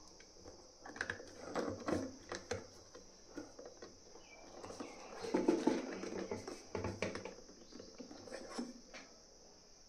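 Plastic parts of a Bambu Lab AMS Lite rotary spool holder handled and fitted onto its housing: scattered light clicks and scrapes, with a louder spell of rubbing about five to seven seconds in.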